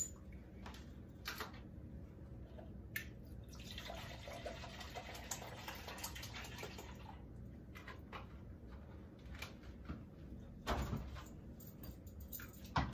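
Orange juice pouring from a plastic gallon jug into a measuring cup: a steady splashing pour of about three seconds, starting a few seconds in. Light clicks of handling and a couple of knocks of things set down on the counter come near the end.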